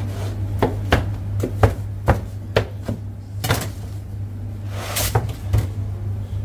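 Knife chopping on a cutting board in a pizza kitchen: about a dozen sharp, irregular strikes with a short lull near the middle, over a steady low hum.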